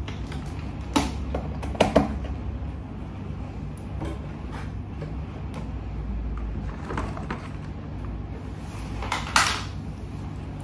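Steady low hum of the salon room with a few sharp clicks and knocks, the loudest about one and two seconds in. Near the end comes a short rustle, as of the salon cape being moved.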